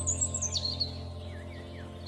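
Small songbirds chirping and twittering in quick gliding calls, busiest in the first second, over a soft sustained ambient music drone.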